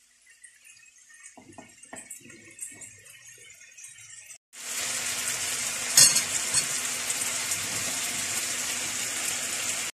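Chicken breast strips, onions and bell peppers sizzling in a frying pan. A faint crackle for the first four seconds or so jumps abruptly to a loud, steady sizzle, with one sharp pop about six seconds in.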